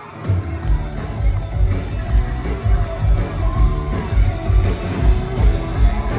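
Live pop-rock band kicking in at full volume about a third of a second in, with drums and bass driving a steady beat and singing over it.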